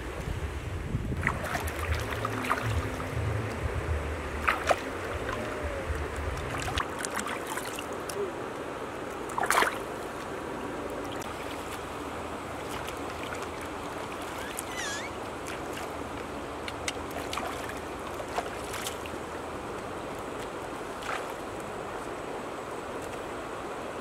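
Wind buffeting the microphone over a campfire's embers, with a few sharp crackles, for the first several seconds. Then a shallow river flowing with a steady rushing hiss, with scattered clicks and splashes and a short chirp.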